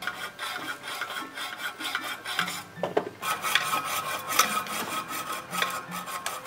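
Hand tool rasping against a steel well-casing pipe in quick repeated strokes, several a second, with a metallic ring; the strokes pause briefly about three seconds in.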